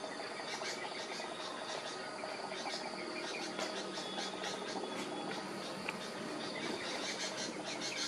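Birds chirping in many short, scattered calls over a steady background of insects trilling.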